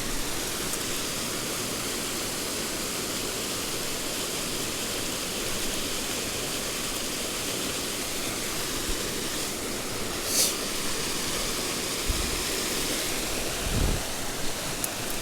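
Mountain stream water rushing steadily, with a short high swish about ten seconds in and a low bump near the end.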